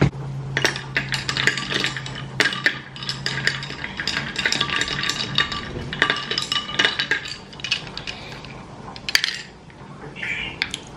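Kitchen clatter: dishes and cutlery clinking and knocking in quick, irregular clicks. A low steady hum stops about four seconds in.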